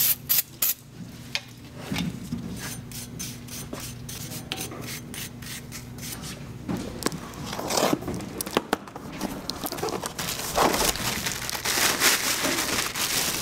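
Brush scrubbing the rusty face of a car's front wheel hub in repeated short strokes, loosening rust and brake debris. Near the end, plastic wrapping on a new brake rotor crinkles.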